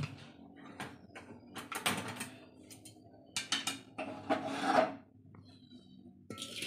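A series of short scrapes and knocks of metal cookware as an aluminium kadai of cooked dal is handled and shifted on the gas stove.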